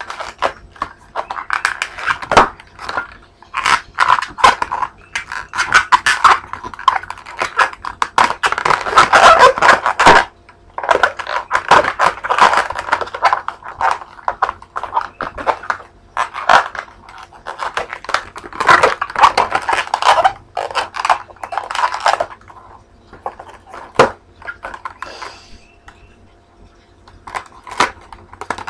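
Latex twisting balloon squeaking and rubbing against itself as it is twisted and tied by hand, in loud irregular bursts with short pauses between.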